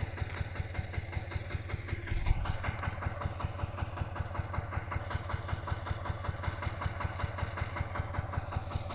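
Power tiller's single-cylinder diesel engine idling with a steady, even beat, and one louder thump about two seconds in.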